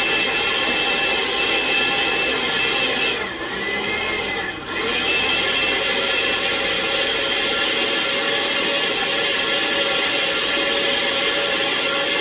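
Countertop blender motor running at high speed, puréeing boiled chiles, onion and garlic with water into a red sauce. The sound dips briefly about three seconds in, then comes back up and runs on steadily.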